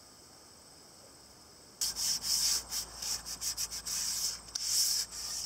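Primed wooden balusters being hand-sanded with a sanding block: quick scratchy back-and-forth strokes that start suddenly about two seconds in. The sanding smooths grain raised by the primer.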